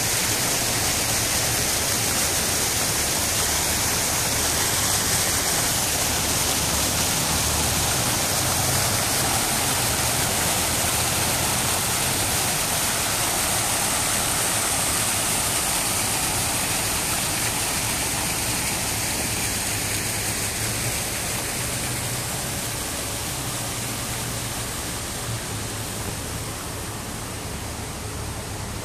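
Decorative fountain jets splashing in a steady rush of water, fading slowly over the last several seconds.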